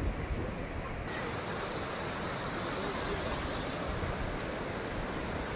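Flood-swollen river rushing: a steady, even water noise that turns brighter and hissier suddenly about a second in.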